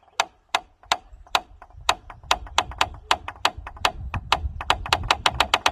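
Wooden farm gate creaking on its hinge as a series of sharp clicks that speed up steadily, from a few a second to a fast chatter near the end, over a low rumble.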